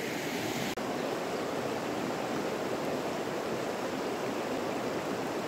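Steady rushing of a fast-flowing mountain stream, with a momentary break just under a second in.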